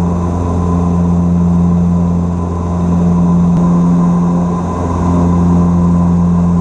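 Antonov An-26's twin turboprop engines and propellers droning steadily on approach: a strong low hum with a higher steady whine above it, swelling and fading slowly about every two seconds.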